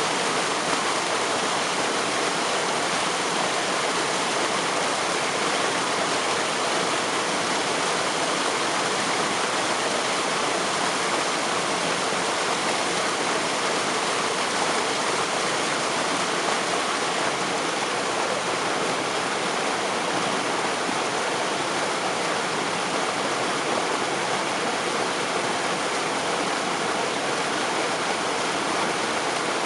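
Waterfall spray: a steady, even rush of falling water.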